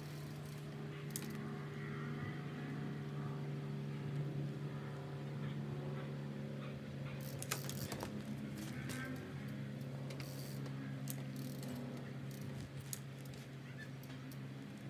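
A steady low machine hum with several fixed pitches, like a running motor, runs throughout. Over it come scattered sharp clicks and knocks from a mountain bike being ridden, with a cluster of them partway through as the front wheel is lifted.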